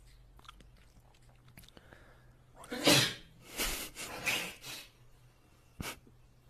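A person sneezing loudly and suddenly about three seconds in, followed by a few shorter breathy bursts; a short sharp click near the end.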